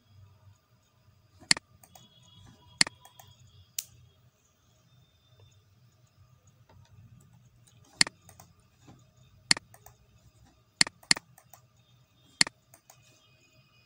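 Computer mouse button clicks, about eight sharp separate clicks at uneven intervals, two of them in quick succession about eleven seconds in, over a faint low hum.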